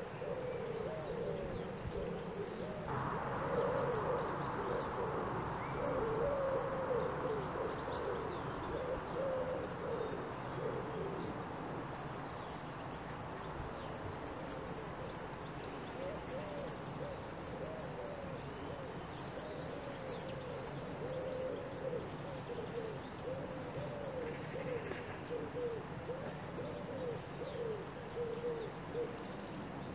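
Outdoor birdsong: low cooing calls repeating throughout, with faint higher chirps. A soft hiss of background noise comes in about three seconds in and fades by about twelve seconds.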